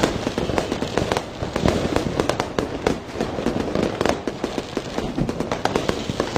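Fireworks going off: a dense, irregular run of sharp cracks and pops, many each second.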